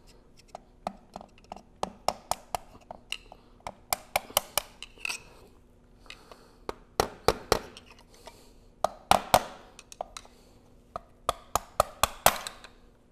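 A small hammer tapping the end of a screwdriver, steel on steel, with light sharp taps in irregular quick runs and short pauses between them. The screwdriver is driving a snap ring around the compressor shaft into its groove until it snaps into position.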